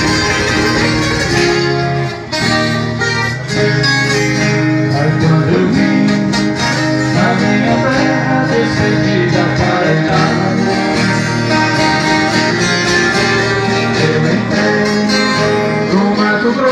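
Instrumental break of Brazilian country music: viola caipira and guitar picking and strumming a tune, with a short dip about two seconds in before the playing goes on.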